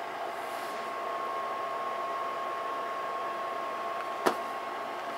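Room tone: a steady hiss with a thin, high, steady whine, and one sharp click about four seconds in as a hand comes up to the recording device.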